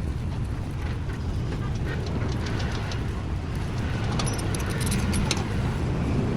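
A motor running with a steady low rumble, with light metallic clicks and taps about two and a half seconds in and again around four to five seconds in.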